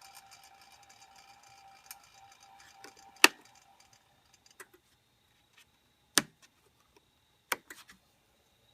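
Jet 1221VS midi lathe motor running slowly with a faint steady whine and light ticking, which fades out over the first three seconds; the owner hears the clicking from the motor and is unsure whether it is the brushes. A sharp click comes about three seconds in, then a few separate knocks later.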